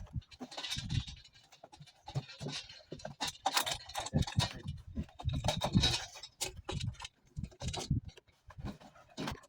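Irregular knocks, clatter and scraping from hands-on work with the chimney pipe and its mounting brackets, in quick uneven bursts.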